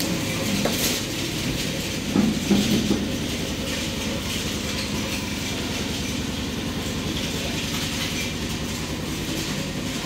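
A motor or engine-driven machine running steadily at an even pace, with a fast regular pulse; a few louder short knocks come about two to three seconds in.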